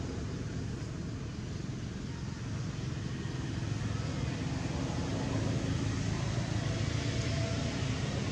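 Steady outdoor background rumble with hiss, growing a little louder about halfway through.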